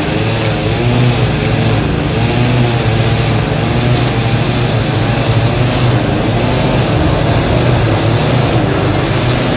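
Petrol backpack brush cutter running steadily at working speed while it cuts through tall grass.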